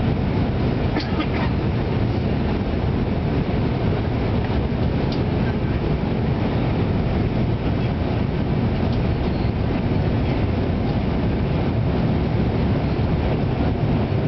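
Steady cabin noise inside an Airbus A319 on its descent to land: engine and airflow noise, deep and unchanging.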